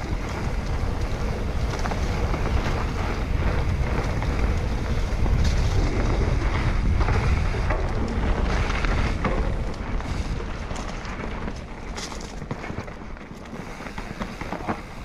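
Wind buffeting the camera microphone of a mountain biker riding down a trail, with a few knocks and rattles from the bike over the ground. The rush is loudest midway and eases off after about ten seconds.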